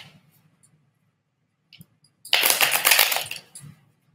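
A deck of tarot cards being shuffled, a dense rapid crackle of cards lasting about a second, starting a little past the middle, after a faint tap or two.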